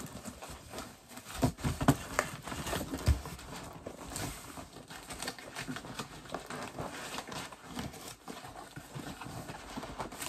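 Irregular light knocks, taps and rustling as household items and their cardboard packaging are handled and unpacked.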